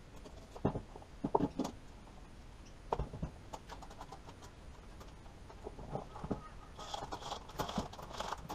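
Bench handling noises: a few light knocks as a roll of masking tape and a utility knife are put down on a rubber mat. Near the end come a denser run of knocks and a scraping rustle as the plastic battery-box lid is handled and lifted off.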